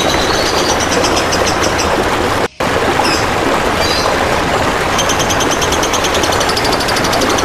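Loud, steady trickling water with a songbird's rapid, high-pitched trill of repeated notes over it. All sound cuts out for an instant about two and a half seconds in.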